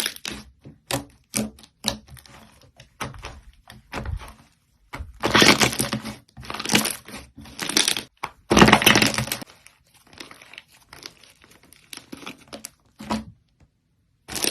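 Slime being squeezed and pressed by hand, giving runs of crackling and popping clicks, with louder stretches of crackling about five, seven and nine seconds in. It falls quiet for about a second near the end.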